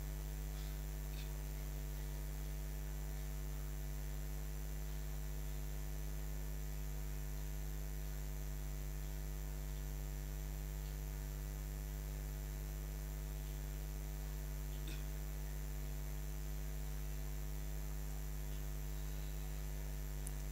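Steady electrical mains hum, a constant low buzz with its overtones and no voice over it.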